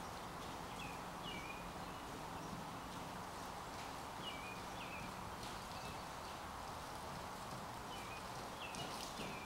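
Horse cantering on soft arena footing some way off: faint, muffled hoofbeats over a steady background hiss, with a few short high chirps here and there.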